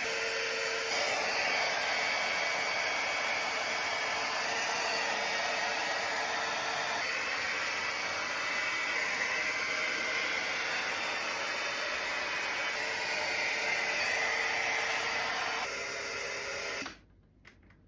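GHD Duet Blowdry hot-air brush running steadily with a faint steady hum, its level shifting slightly a few times, then stopping abruptly near the end.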